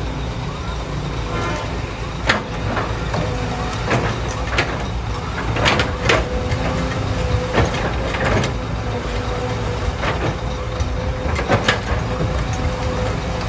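Heavy diesel construction machinery, excavators and trucks, running steadily with a held whine. Over it come a series of sharp, irregular clanks and knocks.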